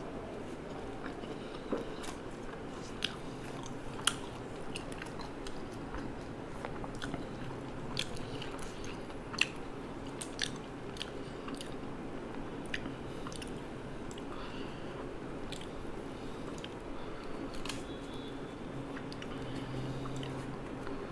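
A person chewing food close to the microphone, with sharp crunching bites now and then; the loudest crunch comes about nine seconds in.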